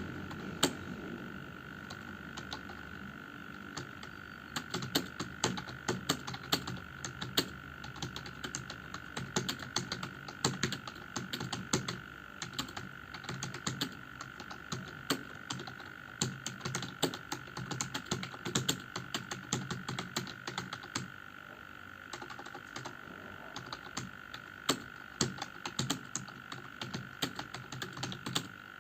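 Rapid, irregular typing on a computer keyboard, a steady patter of key clicks with a brief pause a little after two-thirds of the way through. A faint steady high hum runs underneath.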